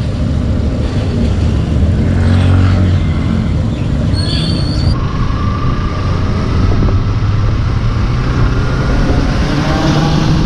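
Yamaha FZ motorcycle engine pulling away and accelerating at low road speed, its pitch rising through the gears, with wind noise on the microphone.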